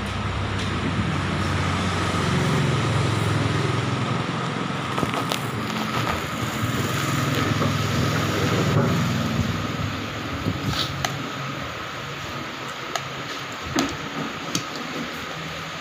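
Steady rumble of road traffic that swells for several seconds and then eases off, with a few light clinks of a metal spoon and fork against a plate in the second half.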